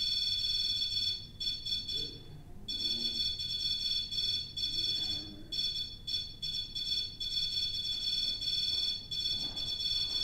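REM pod sounding its steady, high-pitched electronic alarm tone, which cuts out briefly several times. Its alarm goes off when something disturbs the field around its antenna, which ghost hunters take to mean a spirit is touching it.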